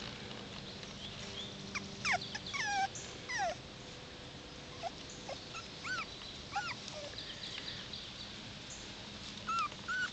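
Five-week-old puppies whimpering and whining: short high-pitched cries that slide up and down in pitch, a quick cluster about two seconds in, more around six to seven seconds, and a couple more near the end.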